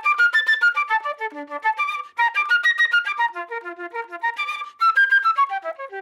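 A solo instrument plays a fast, athletic ringtone melody, rapid runs of notes sweeping up and down the register, with brief breaks about two seconds in and again near five seconds.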